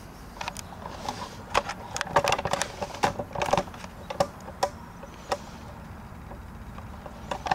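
Irregular clicks and knocks of camcorder handling as the camera is moved in close, over a faint steady hum. The knocks thin out and stop after about five seconds.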